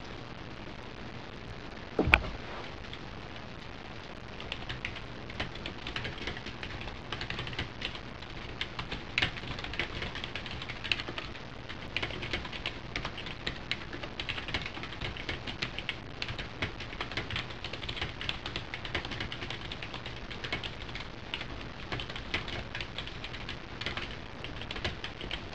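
Typing on a standard full-size computer keyboard: a quick, uneven run of key clicks and clatter that starts about four seconds in and keeps going. About two seconds in there is a single sharp knock, the loudest sound.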